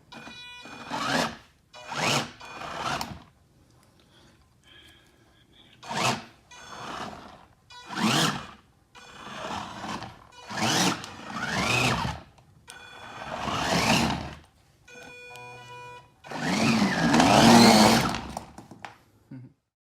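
Small 12-volt DC wheel motors, run by an Arduino through an L298N motor driver under joystick control, spinning up and down in a series of short bursts of about a second each, their whine rising and falling in pitch; the longest and loudest burst comes near the end.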